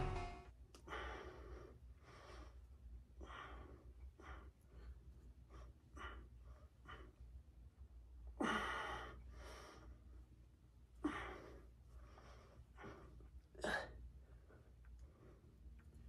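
A man breathing hard with effort through a set of dumbbell lifts, a breath roughly every second, faint, with three louder exhales in the second half.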